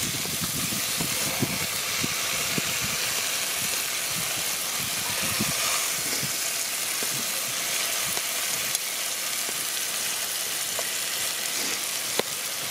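Fish fillets frying in a cast-iron Dutch oven over an open wood fire: a steady sizzle with small crackles and pops throughout, and one sharp click near the end.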